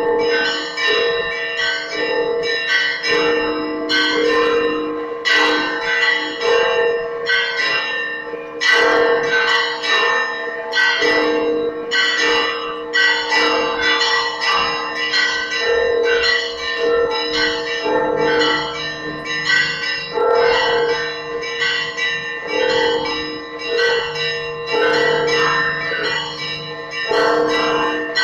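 Church bells of the Church of the Holy Sepulchre ringing a continuous rhythmic peal for the evening service. Smaller bells are struck several times a second over a deeper bell struck about once a second, and a still lower bell joins in now and then.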